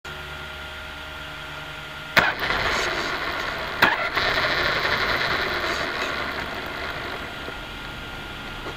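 XTM XT2E electric RC buggy heard through its own onboard keychain camera: a faint steady electronic whine, then about two seconds in a sudden rush of motor and tyre noise as it sets off over the rough tarmac, with a sharp knock just before four seconds, easing off over the next few seconds.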